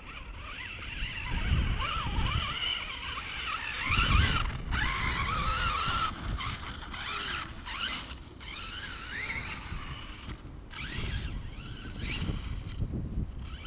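Radio-controlled monster truck's motor whining, its pitch rising and falling as the throttle is worked over sand jumps. Low rumbles come in surges, the loudest about four seconds in.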